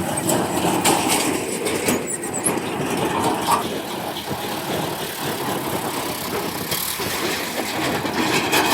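Diesel engine of a JCB 3DX backhoe loader running steadily, with scattered clanks and rattles.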